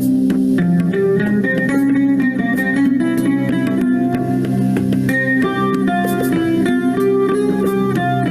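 Instrumental music led by guitar, steady in level, with many held notes shifting in pitch.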